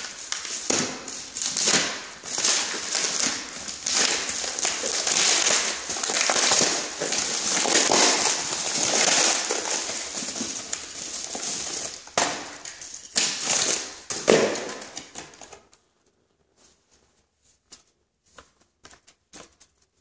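Yellow padded paper mailer envelope being handled and torn open: dense crinkling and crackling of paper, with sharp tearing strokes. It stops about three-quarters of the way through, leaving only a few faint taps as the package inside is handled.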